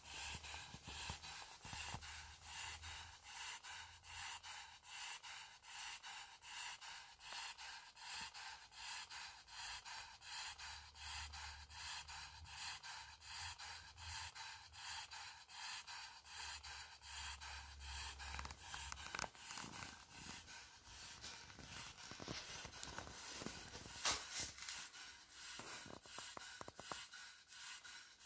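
Half-scale model Fieldhouse horizontal single-cylinder engine running steadily, its exhaust hissing in an even rhythm of short puffs. A single louder click comes about three-quarters of the way through.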